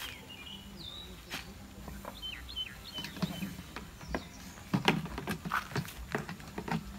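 Small birds chirping in short, pitch-bending calls over the first few seconds. Then, from about three seconds in, a quick run of sharp clicks and knocks, the loudest a little before the five-second mark.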